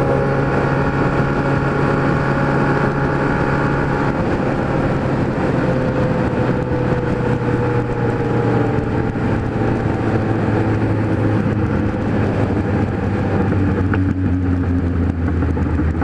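Kawasaki Z1000 inline-four running through an Atalla 4-into-1 straight-pipe exhaust at highway speed, heard from the rider's position with wind noise. The engine note holds steady for a few seconds, then slowly drops in pitch as the bike eases off and slows.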